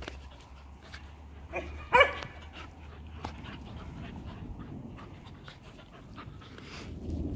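Dogs at play; one gives a short bark about two seconds in, the loudest sound, just after a smaller yip.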